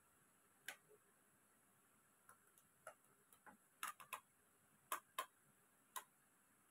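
Faint plastic clicks and taps of figure parts being handled and pressed onto a plastic display base, about ten scattered ones, the loudest a few together around four to five seconds in.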